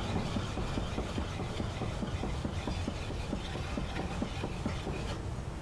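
A handheld sharpening stone rubbed back and forth over the hard steel bevel of a hewing hatchet: a steady scraping of stone on steel in quick, even strokes.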